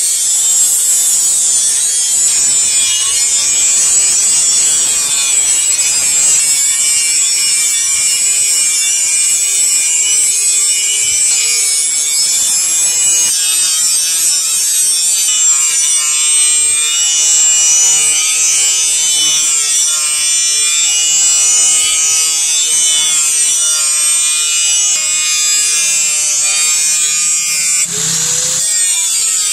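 Handheld electric angle grinder with an abrasive disc grinding a steel knife blank cut from a chainsaw bar: a loud, steady high hiss of the disc on the steel over the motor's whine, with faint ringing tones from about halfway through.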